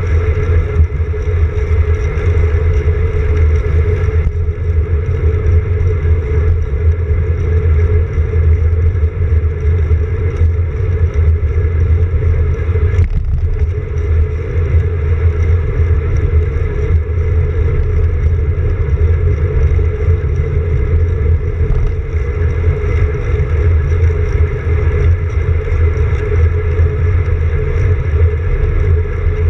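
Steady wind rush and rolling road noise on a handlebar-mounted camera of a road bike riding along a paved bike path, a loud low rumble that never lets up. A single brief knock about halfway through, as from a bump in the path.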